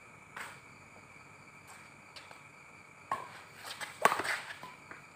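Badminton rackets striking a shuttlecock during a rally: a soft hit about half a second in, a sharper one around three seconds, and the loudest, close hit about four seconds in.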